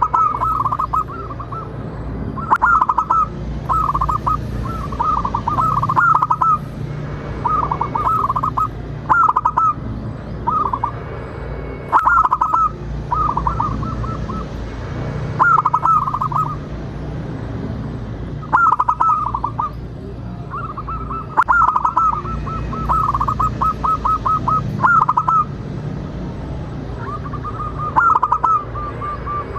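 Zebra dove (perkutut) cooing: short runs of rapid, clipped notes repeated every second or two, with a few longer runs in between. A steady low hum sits underneath.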